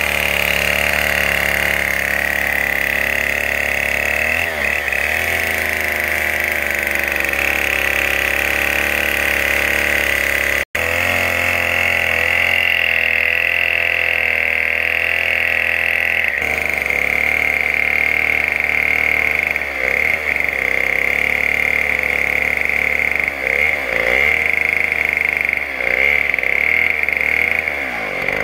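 Two-stroke petrol chainsaw running steadily while ripping lengthwise through a palm log. The sound breaks off for an instant about ten seconds in, and the engine speed dips briefly a few times near the end.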